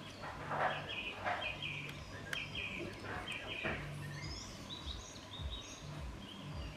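Birds chirping repeatedly in short high calls over steady background noise, with a few faint clicks.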